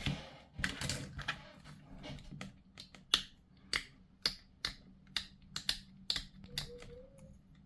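Sharp, irregular clicks and snaps of hard plastic, about fifteen in all, from push-fit plastic miniature parts being handled and assembled.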